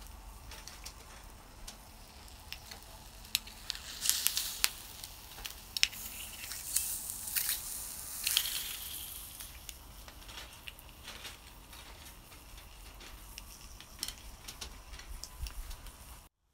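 Abalone sizzling in their shells on a wire grill, a steady crackling hiss. From about four seconds in the sizzling grows louder for several seconds, with sharp clicks as a shell is lifted and handled on the grate.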